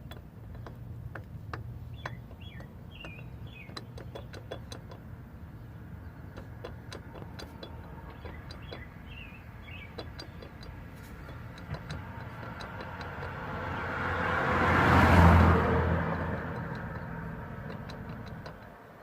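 A vehicle passes by, its sound swelling to a loud peak about fifteen seconds in and then fading away, over a steady low engine hum. A few bird chirps come through in the first half.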